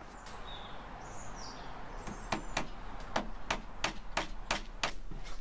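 A fluted wooden dowel being tapped into a glued hole in a plywood strip: about nine sharp taps, roughly three a second, starting a little over two seconds in.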